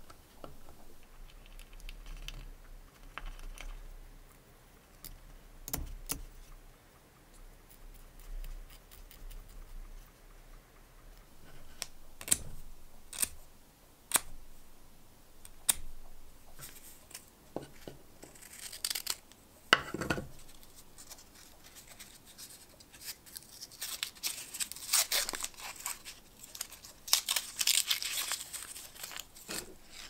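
Small metal lighter parts being handled and fitted together by hand, giving scattered light clicks and taps, with a louder scrape about two thirds of the way in. Near the end comes a stretch of dense rustling and tearing, as a fibrous wadding pad is handled.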